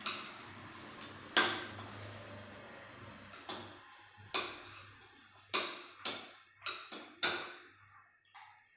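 Wooden spoon knocking against a plastic mixing bowl while stirring chopped fruit: about nine short, irregular knocks, the loudest about a second and a half in, coming closer together near the end.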